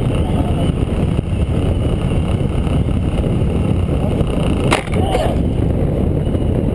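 Steady rush of wind and road noise from a motorcycle riding at highway speed, with one brief sharp click a little more than halfway through.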